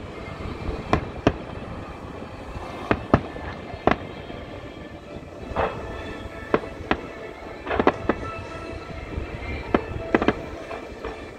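Aerial firework shells bursting with sharp bangs, about a dozen at irregular intervals, several in quick pairs, over faint background music.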